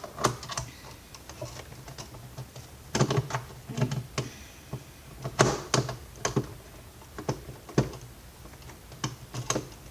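Irregular sharp clicks and light clatters of small hand tools and screwdriver bits being handled and fitted, with a denser cluster of clicks about three seconds in and another about five and a half seconds in.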